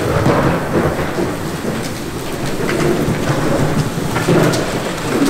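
Manual push floor sweeper rolling across a concrete floor, its brushes sweeping up scattered small debris with a steady rumble and a crackle of bits being picked up.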